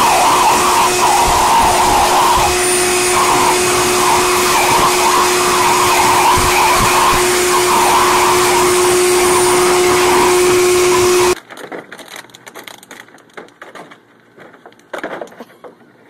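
Electric blower motor running steadily, with a rushing airflow and a constant hum, until it cuts off abruptly about eleven seconds in. After that come faint scattered clicks and knocks.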